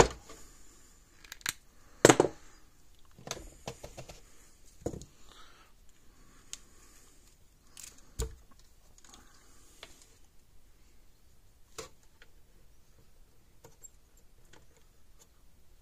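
Hand tools being handled at a workbench: scattered clicks and clacks of wire cutters and other tools, the loudest about two seconds in, and a dull knock about eight seconds in, with only faint ticks in the last few seconds.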